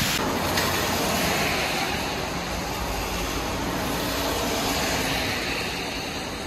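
Traffic passing on a rain-soaked road: tyres hissing through the wet surface with faint engine sound, easing slightly near the end as the road empties.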